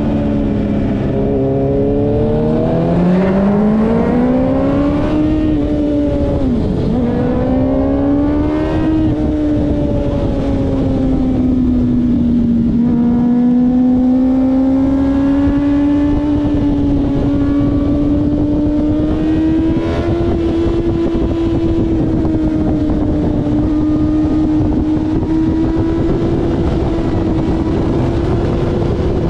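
Motorcycle engine heard from on board at full track speed: revs climb hard, drop sharply at a gear change about seven seconds in, climb again and then hold high and fairly steady, with heavy wind noise over the microphone.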